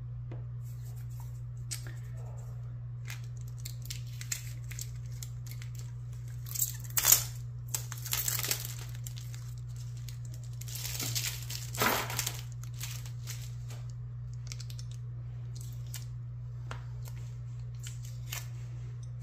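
Clear plastic packaging crinkling and tearing as lock picks are pulled out of their sleeve, loudest in two rustling stretches about a third and about two thirds of the way in. Light clicks of the metal picks being handled and set down, over a steady low hum.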